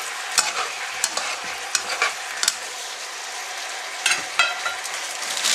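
Fried chicken pieces sizzling in thickened sauce in a wok as they are stirred and tossed to coat, with scattered scrapes and clicks of the utensil against the pan.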